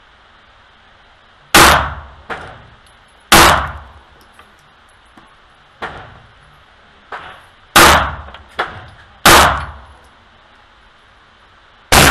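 Sig Sauer P365 pistol fired at a slow, deliberate pace, five loud shots one to four seconds apart, each ringing off in the hard walls of an indoor range. Fainter gunshot reports fall between them.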